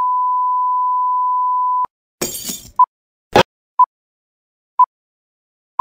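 Film-leader countdown sound: a steady test tone for about two seconds, then a short crash of noise and a sharp click, followed by short beeps at the same pitch once a second as the countdown runs.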